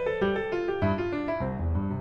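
Background instrumental music: a melody of quick separate notes over slower low bass notes.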